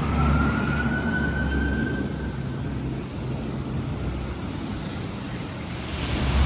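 Emergency vehicle siren wailing, one slow rising sweep that fades out after about two and a half seconds, over the steady rumble of vehicle engine and road noise. Near the end a rush of noise swells and the engine rumble gets louder.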